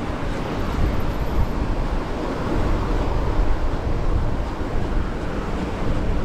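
Steady wind noise buffeting the microphone on a moving bicycle: a continuous low rumbling rush with no distinct events.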